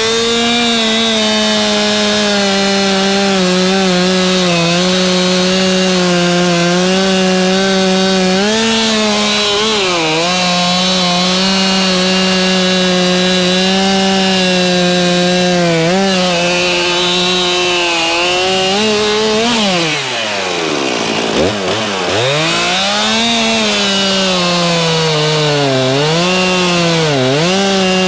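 Stihl MS 261 two-stroke chainsaw running at high revs, cutting through a log. Its pitch sags briefly a few times, and about two-thirds of the way through it drops steeply toward idle before revving back up.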